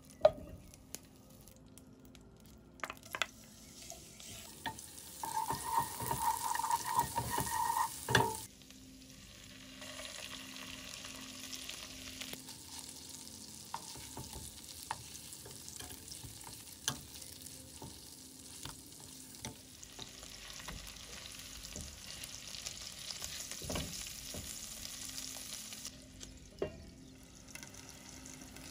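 Butter and salmon fillets sizzling in oil in a non-stick frying pan, with the hiss steady from about a third of the way in. A few sharp clicks come from metal tongs against the pan.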